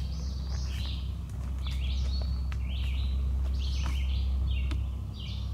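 Summer woodland chorus of high chirping calls, overlapping and repeating about twice a second, over a steady low rumble of wind and handling noise on the moving camera's microphone.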